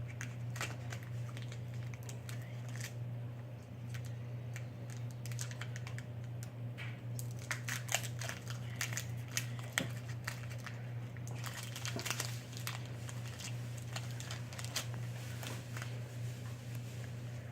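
Foil wrapper of a Pokémon trading card booster pack crinkling as it is torn open and the cards inside are handled: a run of irregular small crackles and clicks.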